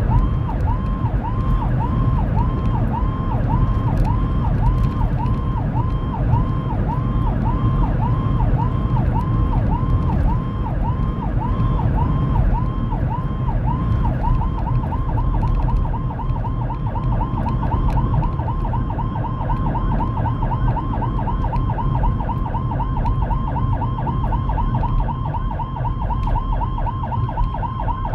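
Whelen 295SL100 electronic siren through dual 100-watt speakers, sweeping up and down about twice a second. About halfway through it switches to a faster sweep, roughly twice the rate, over steady road and engine noise from the moving vehicle.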